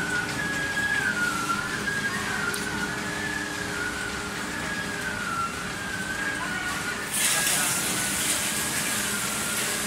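Plastic-sheet extrusion line machinery running: a steady low hum under a high whine that slowly wavers up and down every second or two. About seven seconds in, a loud hiss starts and carries on.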